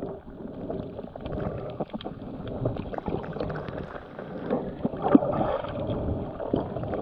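Shallow sea water sloshing and gurgling around the camera, muffled, with many small clicks and knocks.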